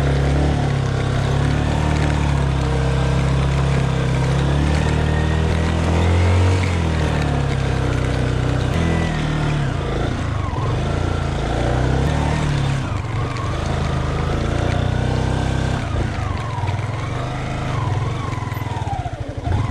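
Motorcycle engine running under load on a rough gravel climb, its pitch rising and falling with the throttle.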